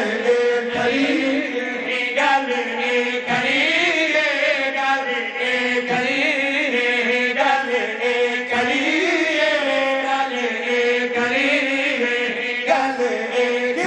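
Several men chanting a devotional qasida together into microphones, the melody carried in long held notes that bend slowly up and down.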